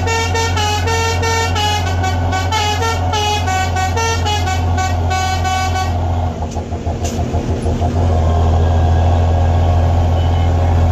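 Musical truck horn playing a quick tune of stepped notes for about six seconds over the truck's engine drone. The horn then stops and the engine carries on, its note wavering for a couple of seconds before it steadies.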